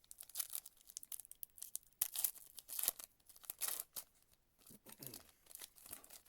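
Foil trading-card pack wrapper being torn open and crinkled, in a series of uneven tearing and rustling bursts, the loudest about two to four seconds in.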